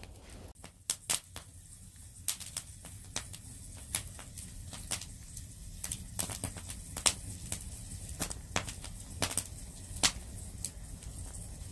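Wood log fire crackling, with irregular sharp pops and snaps over a low steady hiss; the loudest snaps come about seven and ten seconds in.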